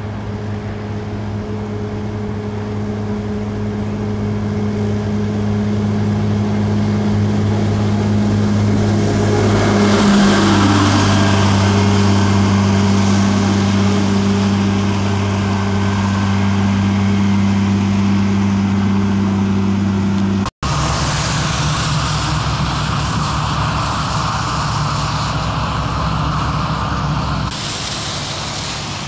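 Heavy road-clearing loader engine running steadily, growing louder over the first ten seconds as it approaches. After an abrupt cut about two-thirds through, a rougher engine drone mixed with a windy hiss.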